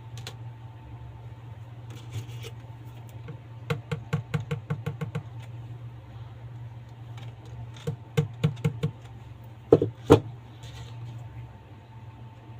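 Close handling noise: quick runs of light clicks and taps, then two louder knocks about ten seconds in, over a steady low hum.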